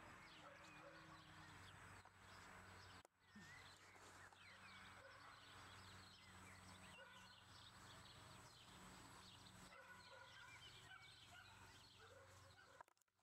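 Faint birds chirping, many short calls, over a low steady hum; the sound drops out briefly about three seconds in and cuts off near the end.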